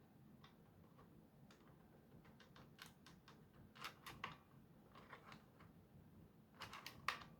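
Near silence with scattered faint clicks and taps from hands handling the parts of a disassembled toy blaster. The clicks come in small clusters, the loudest about four seconds in and near the end.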